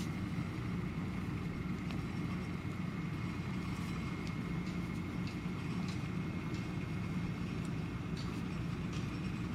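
Steady low rumble of outdoor background noise, with a thin steady high whine and a few faint clicks scattered through it.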